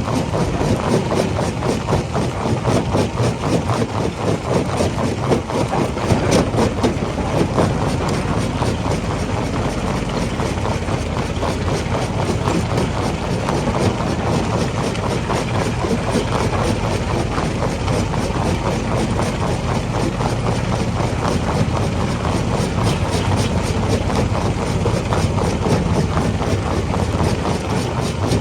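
Rock crusher running with a steady heavy engine drone and a dense, continuous rattle of stone being crushed.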